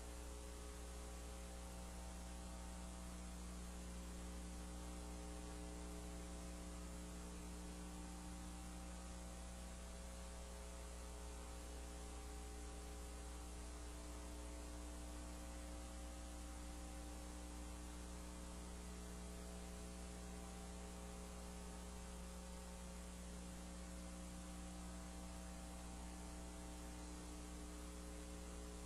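Steady electrical mains hum with a buzzy string of overtones over a faint hiss, unchanging and with nothing else heard.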